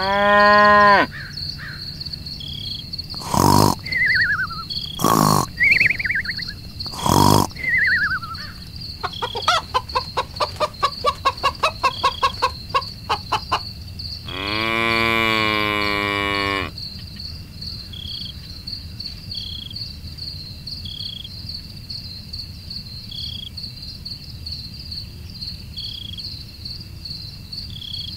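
Farm animal ambience. Cattle moo, once briefly right at the start and once long about halfway through, over steady insect chirring and repeated bird chirps, with a rapid run of clicking calls in between.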